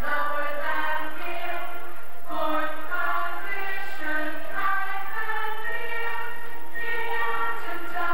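A song with several voices singing over music, playing for a stage dance routine.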